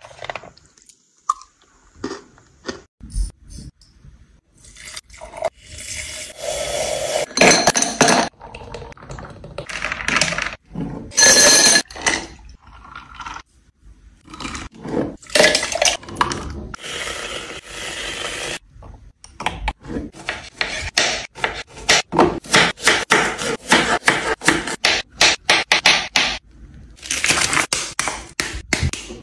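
Close-up handling of food and kitchenware: scraping, clinking and tapping sounds, some in longer stretches of a second or two. Later comes a dense run of rapid crackling clicks.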